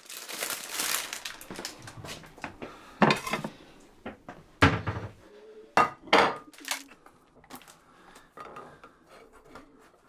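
Kitchen clatter: crockery and cutlery being handled and set down, with several sharp knocks about three to seven seconds in, after a rustle at the start.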